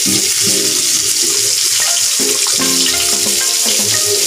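Chopped onion frying in hot mustard oil with whole spices, a loud, steady sizzle.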